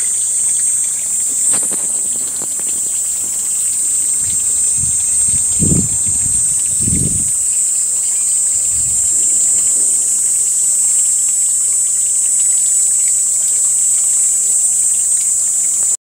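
Cicada buzzing, a steady, shrill high-pitched drone without a break. A few low rumbles come about five to seven seconds in.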